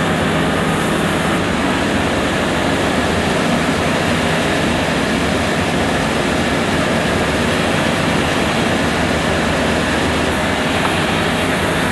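Steady machinery running, a loud even mechanical drone with a few constant tones in it and no change in speed or load.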